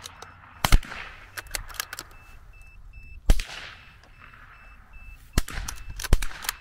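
Several .22 LR rifle shots at irregular intervals, each a short sharp crack, with a faint electronic beep repeating in short pulses from about a third of the way in.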